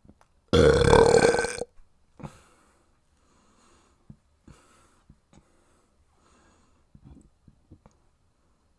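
A person's single loud, long burp, starting about half a second in and lasting about a second, with a pitched rasp. Faint breaths and small clicks follow.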